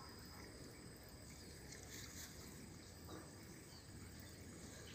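Near silence: faint rural ambience with a steady high chirring of insects such as crickets.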